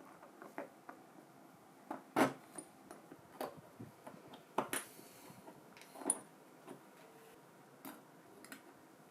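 Irregular light clicks and knocks of small hard drill parts and tools being handled, the loudest about two seconds in and again near five and six seconds.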